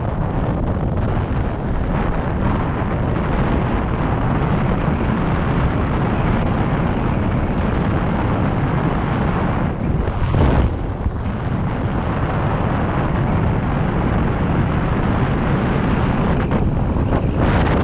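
Wind buffeting the camera microphone while riding fast downhill: a loud, steady rush of air with no engine tone, broken by a short dip and thump about ten seconds in.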